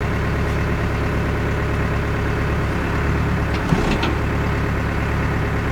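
Caterpillar 430D backhoe loader's diesel engine running steadily, heard from inside the operator's cab, with a brief squeak and click about three and a half seconds in.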